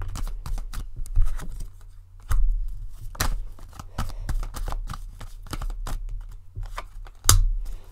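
Tarot cards being handled: a run of soft card clicks and slaps, with a few sharper ones, the loudest near the end.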